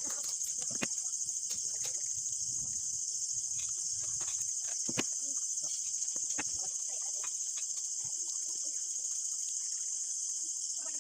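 Steady high-pitched insect chirring, cricket-like, with scattered light clicks and taps.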